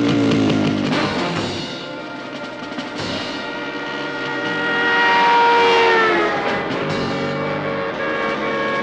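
Orchestral action score driven by timpani and drums, with a motorcycle engine mixed in beneath it.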